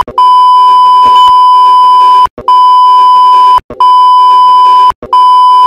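Loud steady censor bleep tone blanking out swearing. It sounds as one long bleep and then several more of about a second each, with brief breaks between them.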